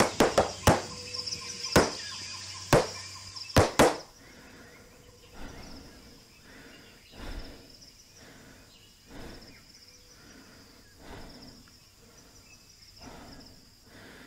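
Tap shoes striking a wooden board in a quick, uneven run of sharp taps for about the first four seconds. After that, softer hits come evenly, about one every two seconds, until near the end.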